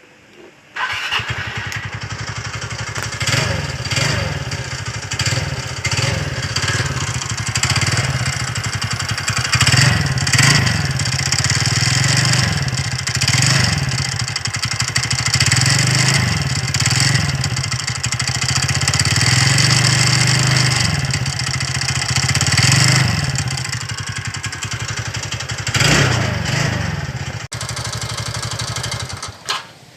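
TVS Ntorq scooter's single-cylinder engine started about a second in and run with repeated throttle blips, then cut off near the end. It carries a noise from the magneto flywheel, whose nut has worked loose.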